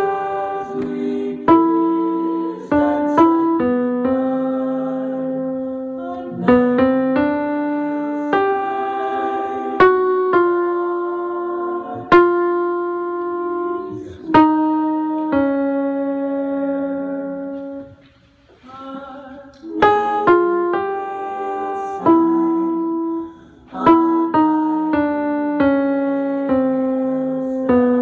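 Piano playing a slow melody over chords, each note struck and then fading, with a short break about eighteen seconds in.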